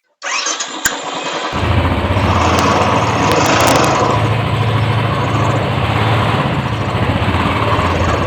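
Royal Enfield Classic 350's single-cylinder engine starting about a second and a half in, then idling with a steady low thump through the stock silencer fitted with an aftermarket rubber end-piece, which the owner finds makes no difference to the sound.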